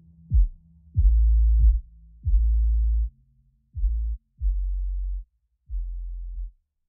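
Electronic background music with only deep bass left: a series of long, low bass notes, each starting with a kick-drum hit that drops in pitch, getting quieter and shorter toward the end as the track winds down.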